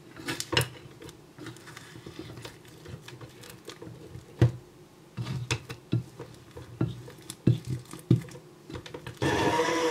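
Silicone spatula scraping and slapping sticky brioche dough against the sides of a glass bowl, with irregular soft knocks and clicks on the glass and one sharper knock about four seconds in. Near the end an electric hand mixer switches on and runs steadily, kneading the dough with its hooks.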